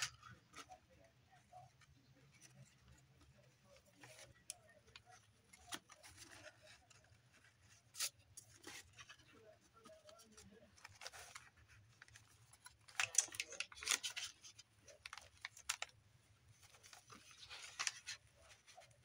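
Faint paper and twine handling: soft rustles and small taps as a paper tag is threaded, tied and slipped into a journal pocket. Two short spells of louder paper rustling come in the later part.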